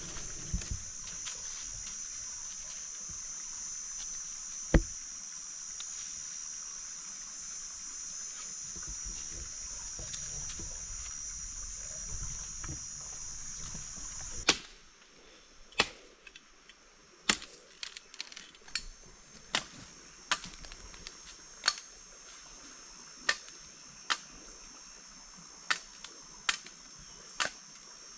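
Machete chopping into wooden poles: a run of sharp strikes about one a second, starting about halfway through, over a steady high buzz of forest insects. Before that, one sharp knock and some rustling of branches.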